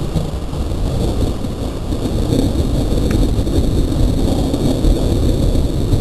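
Thunderstorm: a continuous low rumble that grows a little louder about two seconds in.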